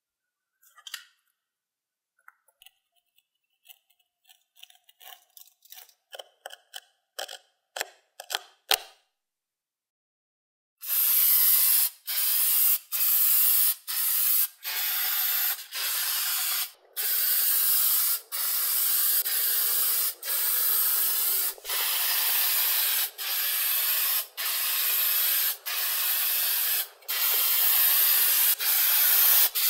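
Light crackles and clicks of a hobby knife cutting masking tape, coming faster and faster. After a short pause, sandable primer is sprayed onto the metal parts: a loud hiss broken by short gaps about once a second.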